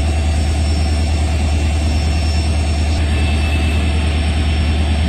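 WDP4D diesel-electric locomotive's two-stroke EMD diesel engine idling with a steady, loud low rumble.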